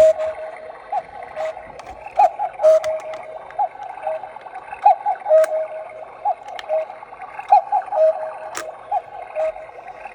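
Battery-powered cuckoo clock sounding its electronic two-note cuckoo call again and again at a steady pace, each call a short higher note dropping to a held lower one.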